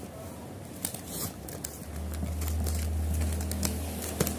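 Light clicks and taps of hands handling a toy spinner, with a low steady hum from about two seconds in.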